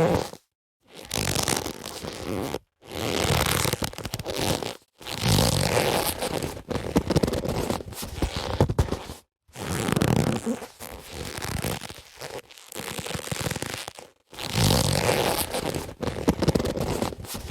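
Leather boxing gloves being rubbed and handled, giving dense friction noise in stretches of a few seconds broken by brief silences.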